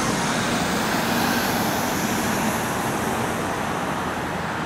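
Road traffic: cars passing on a multi-lane road, a steady rush of tyre and engine noise.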